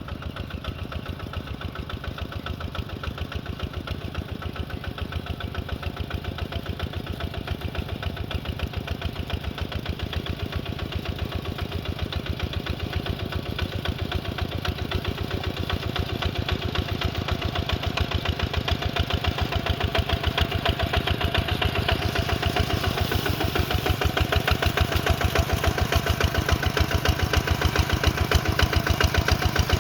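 A heavy earthmoving machine's diesel engine running steadily with a fast, even chug, growing gradually louder, with more clatter in the upper range over the last several seconds.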